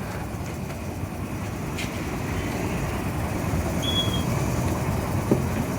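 Steady background traffic rumble growing slightly louder, with a brief high chirp about four seconds in and a small click near the end.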